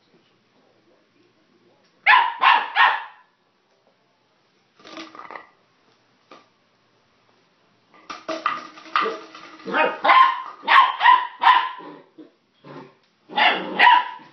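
Border collie puppy barking in short strings: three quick barks about two seconds in, a couple more around five seconds, a long run of rapid barks from about eight to twelve seconds, and another burst near the end.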